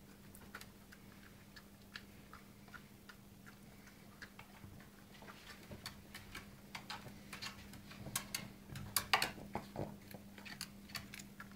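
An old Cavalier King Charles spaniel's claws clicking and paws tapping on wooden stair treads as it comes down the stairs step by step. The clicks are irregular, sparse at first, then come faster and louder in the second half.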